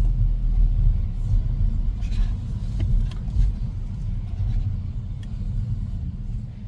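A car being driven, heard from inside the cabin as a steady low road and engine rumble.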